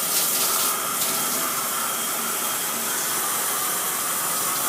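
Water spraying steadily from a name-brand shower head onto a shower stall, a hiss that changes slightly about a second in. The spray is not very wide and does not have a lot of velocity.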